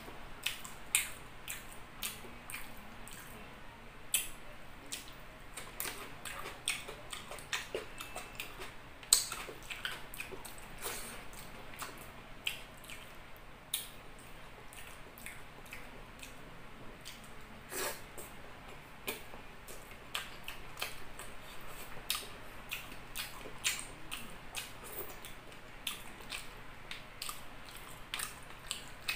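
Close-up eating sounds of someone chewing soft chicken liver and rice: an irregular run of wet smacks and squishes, several a second, with a few louder smacks.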